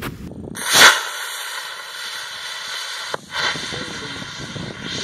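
Model rocket motor lifting off: a short, loud whoosh about a second in, then a steady hiss, with a second rush shortly after a brief break near 3 seconds.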